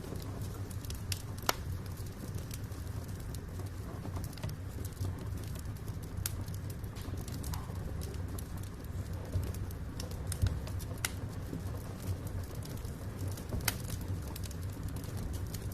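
Wood fire burning in a fireplace: a steady low rumble of the flames with scattered sharp crackles and pops from the burning logs, a few seconds apart.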